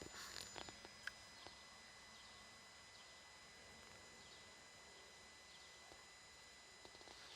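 Faint, steady high-pitched electrical buzz from a Ford S-Max 2.2 TDCi with the engine switched off, the unexplained noise it makes after shut-off or unlocking. A few light clicks come in the first second and a half.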